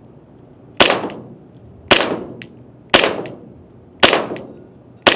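PTS ZEV 1911 gas blowback airsoft pistol running on green gas, firing five shots at an even pace of about one a second. Each is a sharp pop of the shot and the slide cycling, with a short echo.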